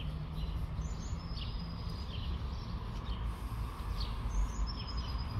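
Small songbirds chirping, short calls about every second, with a few thin, high held notes. A steady low rumble sits underneath.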